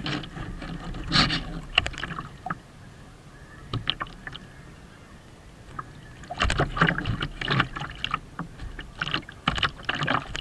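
Water slapping and splashing against the hull of a Kyosho Seawind RC sailboat in rough water, heard from on board. The slaps come irregularly, with a calmer stretch in the middle and a busy run of splashes in the second half.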